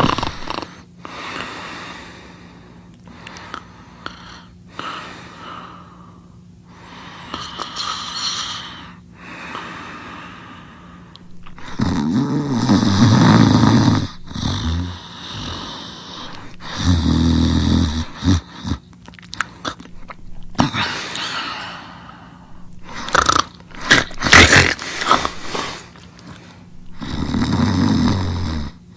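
Loud snoring, a series of long rasping snores with wet drooling and mouth-smacking clicks in between. The longest, loudest snores come about midway and near the end.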